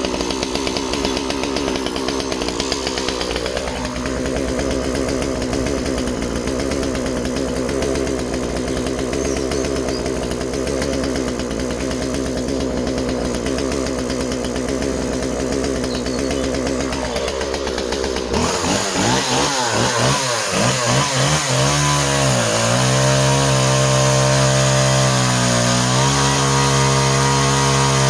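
Two-stroke chainsaw engine running steadily, then about two-thirds in its pitch drops and sags several times, as under load in a cut through wood.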